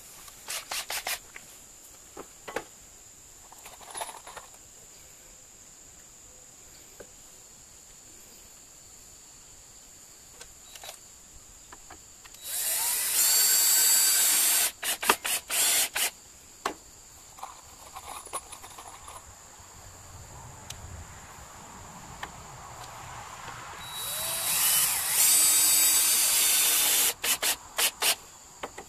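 Cordless drill running into a wooden board in two long runs of about two to three seconds each, with a high motor whine, the second rising in pitch as it spins up; each run is followed by quick on-off blips of the trigger, and there are a few short blips in the first second.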